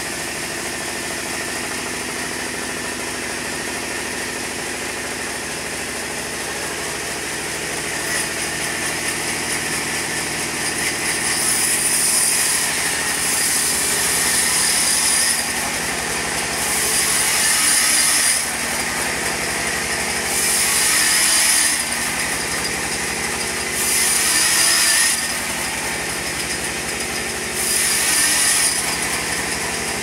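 Large band sawmill running with a steady motor hum, then its blade cutting into a crooked log in repeated surges of high hiss. Each surge lasts a second or two and comes about every three to four seconds as the log is pushed into the blade.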